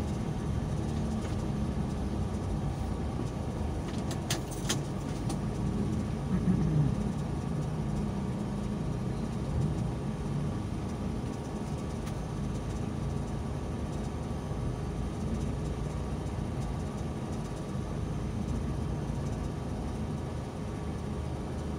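Low, steady engine and road rumble of a vehicle driving through city traffic, heard from inside its cabin. A few short sharp clicks come about four seconds in.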